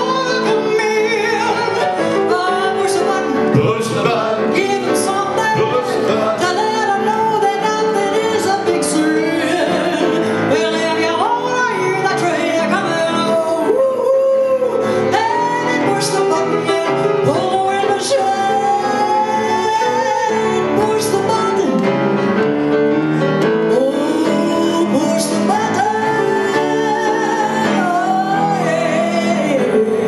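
A woman singing a show tune into a microphone, with live piano accompaniment. Her voice slides and holds long notes over the steady piano chords.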